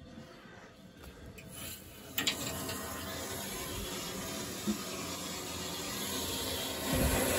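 Water rushing into a newly installed heat pump water heater as its cold-water supply valve is opened and the tank begins to fill. A sharp click about two seconds in, then a steady hiss of flowing water that grows louder.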